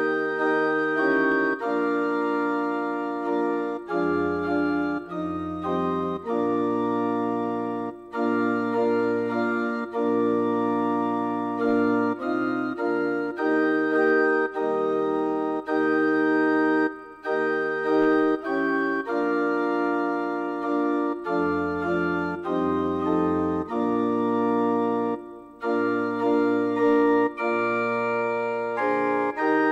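Church organ playing a slow piece in sustained chords over a moving bass line, with brief pauses between phrases about every eight or nine seconds.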